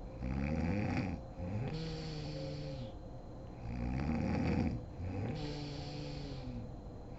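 A sleeping woman snoring in two breath cycles. Each cycle is a loud, rough snore about a second long, followed by a softer, pitched, drawn-out breath that drops in pitch as it ends.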